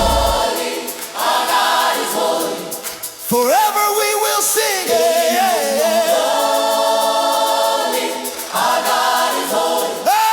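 Gospel choir singing long held chords with almost nothing underneath, the drums and bass cutting out about half a second in; a single voice glides over the chords a little over three seconds in.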